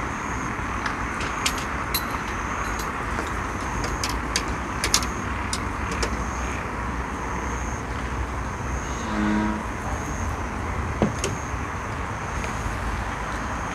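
Steady outdoor night background at the water's edge: a constant hiss-like noise with a thin, high chirp repeating about once a second, a few faint clicks, and one short low call about nine seconds in.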